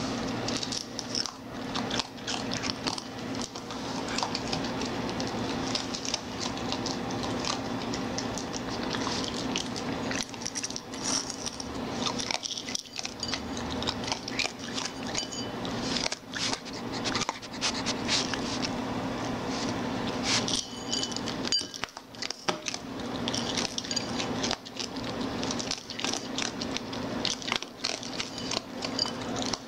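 A raccoon foraging close to the microphone: an irregular run of crunches, clicks and scrapes as it picks up and eats dry kibble, its claws tapping and scraping on the hard floor and its paw pushing at a bowl. Underneath is a steady low hum.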